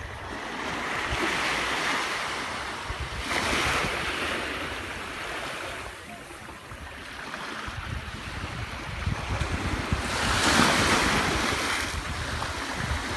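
Small waves washing onto a sandy beach, the surf swelling and ebbing in several washes, the loudest near the end. Wind buffets the microphone in the second half.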